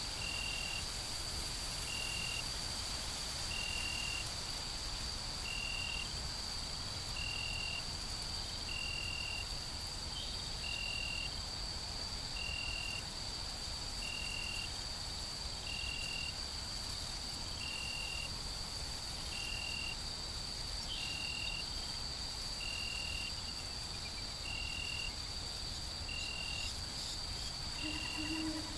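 Woodland insect chorus at dusk: a steady, high-pitched drone of crickets, with one short chirp repeating about every 1.7 seconds. A low hooting call begins right at the end.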